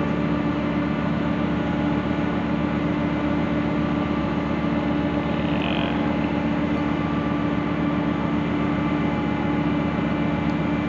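A ship's machinery droning steadily: a constant hum made of several steady tones.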